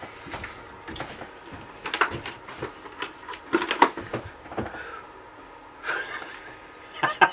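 A plastic bucket being cut down and handled, giving irregular sharp cracks, clicks and knocks of hard plastic. The cut does not go well.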